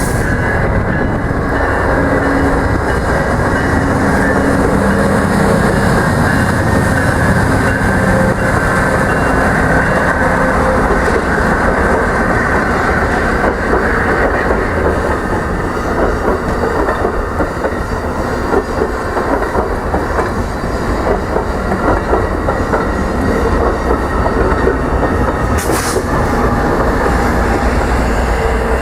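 A train running on rails, its wheels clattering steadily over the track. About 26 seconds in there is a brief hiss.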